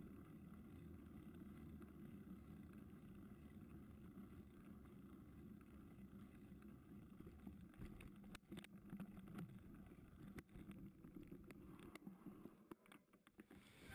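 Near silence: a faint steady low rumble, with a few light clicks in the second half.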